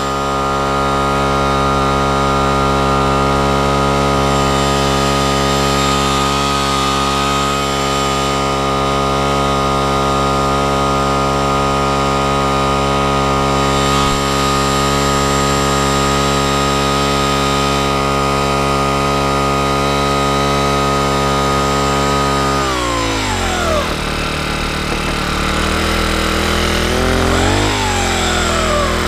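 Petrol-powered rope ascender's small engine running at a steady high speed as it hauls a climber up the rope. A little over three-quarters of the way through, the revs fall away toward idle, then rise and drop once more briefly near the end.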